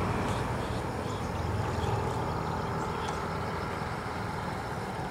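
An engine running with a steady low hum, slowly fading.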